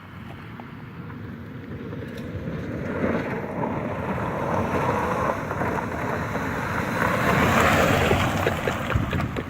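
A car accelerating hard, its engine and road noise building steadily over several seconds and loudest near the end.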